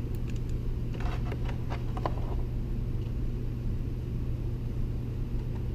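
Steady low hum throughout, with a few small clicks and scrapes in the first couple of seconds as a screw is turned by hand into a plastic radio dash-kit housing.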